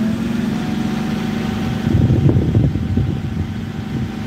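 Forklift engine running steadily with an even hum, heard from the driver's seat. About two seconds in, a louder low rumble rises over it for about a second, then dies back.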